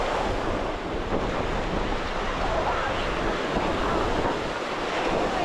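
Ocean surf washing steadily onto a sandy beach, with wind buffeting the microphone and adding a low rumble.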